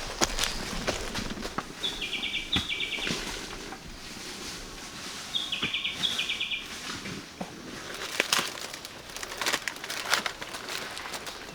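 A small bird calls twice, about three and a half seconds apart, each call a quick series of high repeated notes lasting about a second and a half. Scattered rustling and clicks run under the calls and grow louder near the end.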